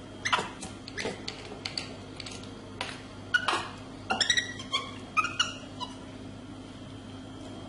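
A monkey making short, sharp squeaks and chirps, about a dozen in a quick irregular series, several falling in pitch.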